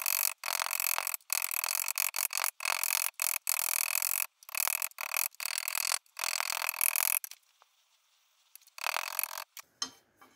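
A steel hammer head rubbed and scraped over the rolled lip of a thin sheet-steel ring held against the end of an old steel cylinder, to smooth the curl. A run of rasping strokes, each about half a second to a second long with short breaks between them, stops about seven seconds in; one more stroke follows about nine seconds in.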